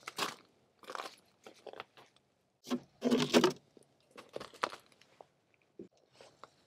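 Irregular crunching and rustling handling noises close to the microphone, loudest about three seconds in, as an ice angler rebaits his hook with a fresh minnow.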